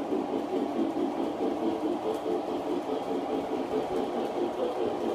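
O scale electric model train running on the track: a steady motor whir and wheel rumble.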